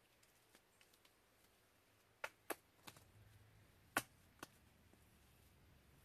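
Hands slapping and pressing handfuls of wet mud onto a log wall: five short, sharp slaps spread between about two and four and a half seconds in, the loudest about four seconds in.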